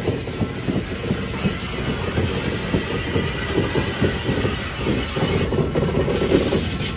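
Reading & Northern 2102, a 4-8-4 steam locomotive, rolling slowly tender-first over the rails, its wheels clacking in a dense irregular run of low knocks, with a faint squeal above.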